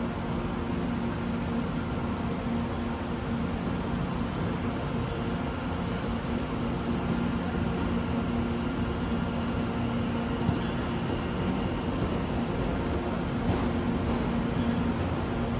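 West Midlands Railway Class 730 electric multiple unit standing at the platform, its onboard equipment giving a steady hum with a few held tones over a hiss.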